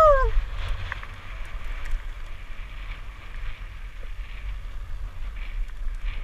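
Wind rumbling on an action camera's microphone and tyres hissing over loose gravel as a mountain bike rides fast downhill, with a few small clicks and rattles. A rider's high whoop trails off right at the start.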